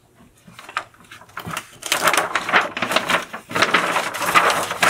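Plastic tarp rustling and crackling: a few faint crinkles at first, then dense, irregular crackling from about two seconds in.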